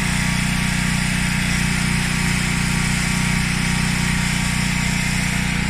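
Washing machine drum in its spin cycle, running at high speed with a steady, unchanging hum.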